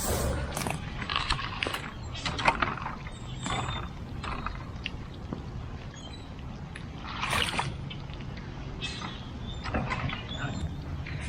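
Wet mud and standing floodwater splashing and scraping in short irregular bursts as dirt is dug out to open a drainage channel, over a steady low rumble.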